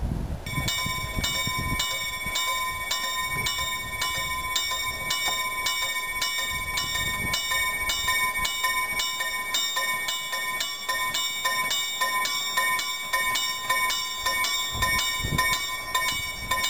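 A railway level-crossing warning bell starts ringing about half a second in and strikes steadily at about three strokes a second, signalling an approaching train. Low wind gusts buffet the microphone at the start and again near the end.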